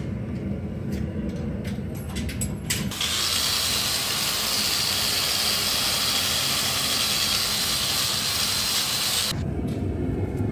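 Electric angle grinder fitted with a wire wheel, power-brushing the scale off a still-hot forged steel candle holder. It is a steady, hissing whir that starts about three seconds in, runs for about six seconds and then cuts off. Before it comes a low shop rumble with a few light clinks.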